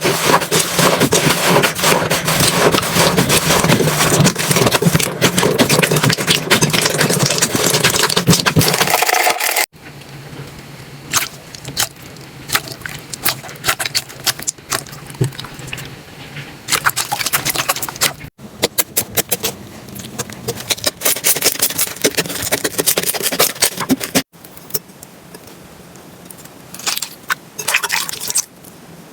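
Slime being squeezed and poked by hand, giving crackling, popping clicks. The clicks are loud and dense for about the first ten seconds. After that come quieter stretches of scattered pops, and the sound changes abruptly three times.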